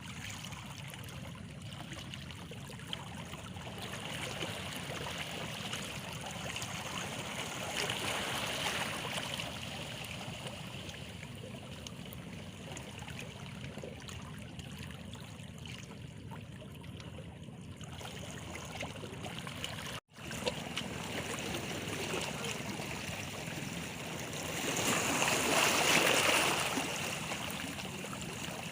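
Small sea waves lapping and washing against stones: a steady wash of water that swells now and then, with the loudest surge about three quarters of the way through. The sound cuts out for an instant about two thirds of the way in.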